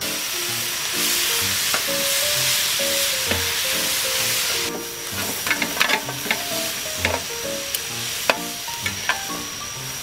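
Vegetables and yakisoba noodles sizzling on a hot iron griddle over charcoal, with a loud, dense sizzle at first. About five seconds in the sizzle drops, and a metal spatula clicks and scrapes against the plate as the noodles are stir-fried.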